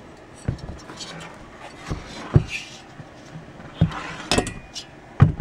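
Metal VW Beetle engine parts (cylinder heads, pistons, valves) being handled and set down on a workbench: about six separate knocks with light clinks in between, the loudest near the end.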